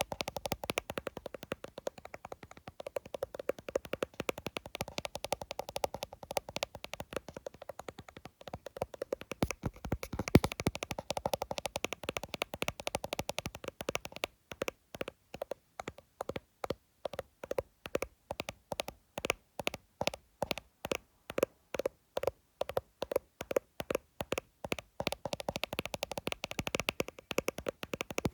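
Fingers tapping fast on an iPhone: a dense flurry of quick taps, thinning about halfway through to evenly spaced taps about three a second.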